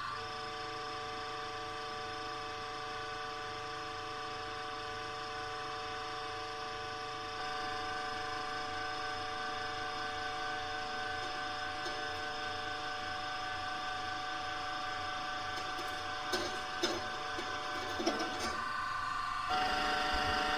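Hydraulic press running with a steady whine of several fixed tones as it slowly squeezes a tooth between steel cones. A few sharp clicks come about three-quarters of the way through, and near the end the whine changes to a different steady tone.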